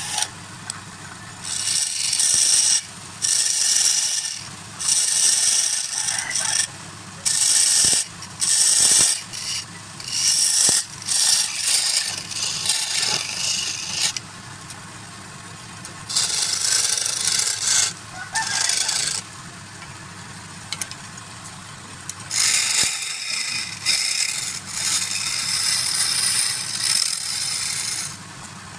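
A wood lathe motor humming steadily while a turning tool is pushed into the spinning wood in repeated passes, each a hissing scrape of a second or two with short pauses between.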